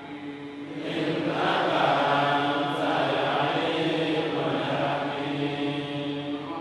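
A man chanting Quranic recitation in long held notes, growing louder about a second in.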